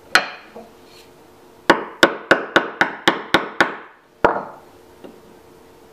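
Mortise chisel being struck repeatedly to chop along marking-knife lines, deepening the outline of a mortise for a butterfly key in wood. One strike, then a quick run of eight at about four a second, then a final strike, each with a short ring.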